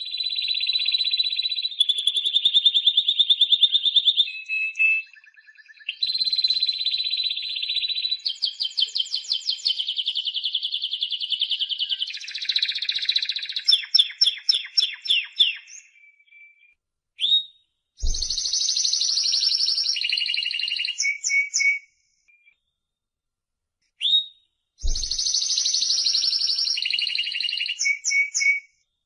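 Timbrado canary singing. Long unbroken rolling trills run for about the first sixteen seconds. After a short pause come two shorter trilled phrases, each ending in a few quick separate notes.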